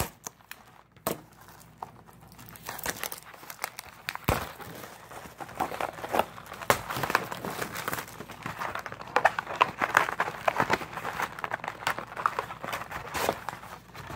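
Clear plastic wrapping crinkling and tearing as a trading-card pack is torn open by hand, a dense run of irregular crackles and snaps.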